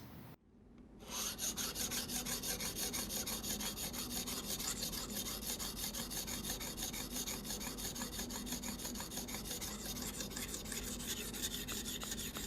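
A 50/40 diamond sharpening stone on a guided sharpener stroked rapidly back and forth along a folding knife's steel edge, giving a steady rhythmic rasping. It starts about a second in. This is the coarse stage that reduces the scratch marks left by the previous stone.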